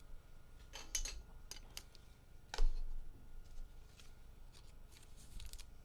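Trading cards and packs being handled on a table: light crinkles and clicks, with one louder knock about two and a half seconds in.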